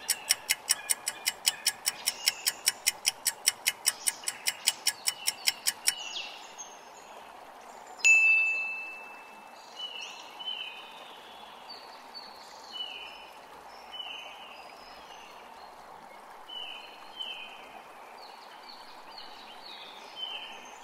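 A quiz countdown timer ticking about four times a second, stopping about six seconds in. About two seconds later a single bright ding sounds as the answer is revealed. After that come short falling bird chirps over a steady background noise.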